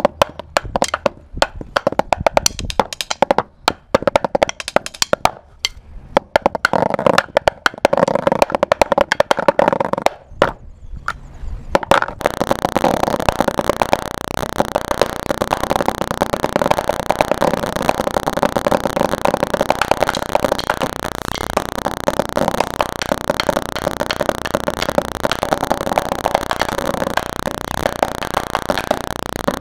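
Wooden drumsticks on a rubber Remo practice pad playing rudiments: separate sharp strokes and short patterns with pauses, then from about twelve seconds in a dense, continuous fast roll.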